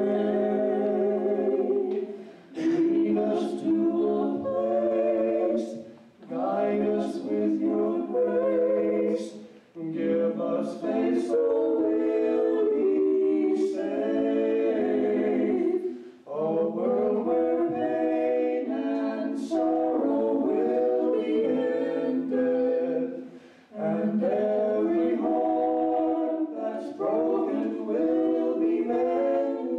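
A man and two women singing a sacred song a cappella through handheld microphones, in sung phrases broken by short pauses for breath.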